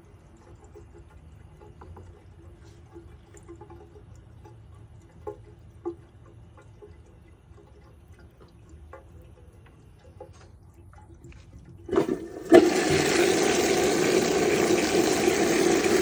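A John Douglas Lotus toilet being flushed from its high tank. After a quiet stretch with a few faint clicks, there are a couple of sharp knocks about twelve seconds in, then a steady rush of water down the narrow flush pipe into the bowl.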